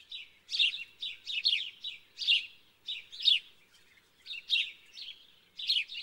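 Small birds chirping: quick high chirps in clusters of two to four, with short gaps between.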